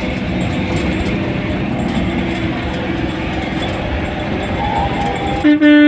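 Engine and road noise heard from inside a moving bus, then the horn sounds one loud steady tone about five and a half seconds in.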